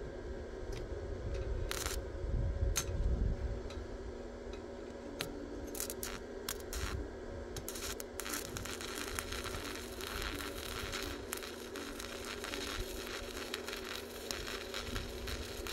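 Electric arc welding on steel roof purlins: a steady, dense crackle and sizzle of the arc that sets in about halfway through, after a few scattered clicks.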